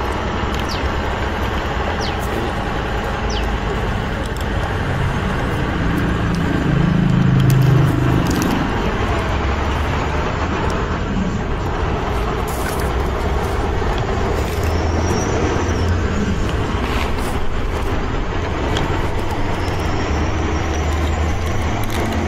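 Steady rumble of a motor vehicle's engine running, like a truck, swelling briefly about seven to eight seconds in.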